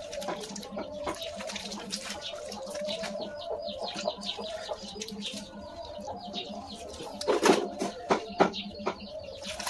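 Wet squishing, squelching and slapping of hands working raw duck intestines over a metal basin, loudest about halfway through, with birds chirping in the background.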